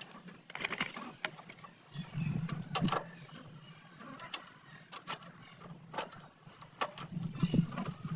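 Irregular metallic clinks and knocks from hand work on a motorcycle shock absorber, over a low steady hum that sets in about two seconds in.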